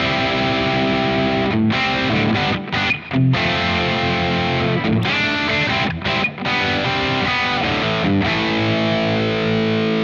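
Distorted electric guitar riffing from a Gibson R8 Les Paul played through a Friedman BE-100 amp head and captured by a Universal Audio OX Box. Held chords and ringing notes, with a few short breaks between phrases.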